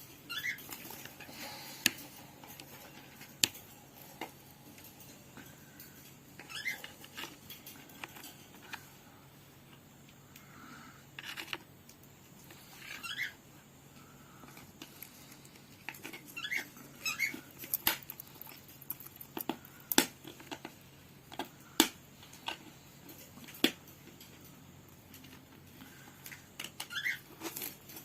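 Cockatiel giving short, soft rising chirps every few seconds, among scattered sharp clicks and taps.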